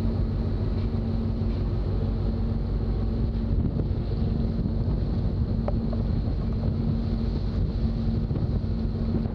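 Steady drone of a work boat's engines and deck machinery, with wind buffeting the microphone.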